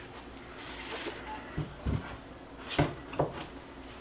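A few soft knocks and bumps, with a brief rustle, as the CNC router's metal-and-plastic gantry parts are handled and set down on a wooden workbench beside the cardboard box.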